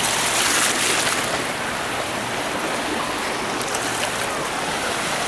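Small waves on Lake Erie washing and breaking along the beach: a steady wash of water noise, a little hissier in the first second.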